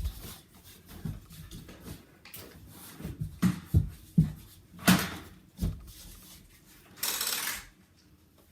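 A scattered series of thumps and knocks from people moving about during an indoor Nerf game, strongest about five seconds in, followed by a short hiss about seven seconds in.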